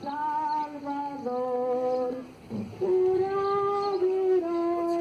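A group of voices singing a slow procession hymn in unison, holding long notes that step from one pitch to the next, with a short breath break about halfway.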